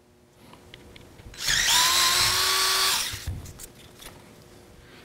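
Cordless drill-driver running for about a second and a half, a steady motor whine that rises slightly as it spins up, backing a Torx 20 screw out of a plastic fog light trim piece. A few light clicks follow.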